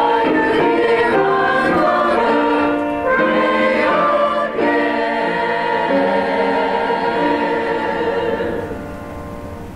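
Small mixed church choir of men and women singing a song in held chords. The singing stops near the end as the song finishes.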